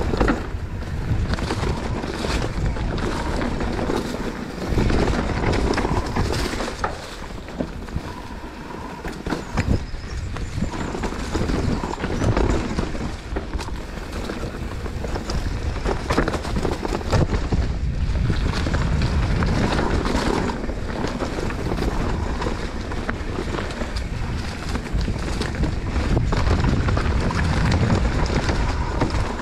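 Mountain bike riding down a dry woodland dirt trail: tyres rolling over dirt and leaves, with frequent knocks and rattles as the bike goes over bumps. Steady wind rushes over the microphone.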